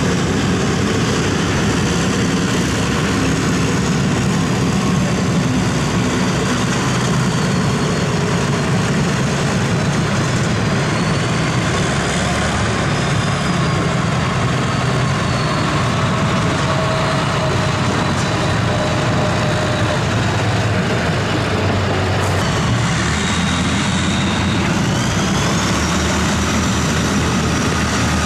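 Heavy off-road vehicle's engine running steadily, with a faint whine that rises near the end.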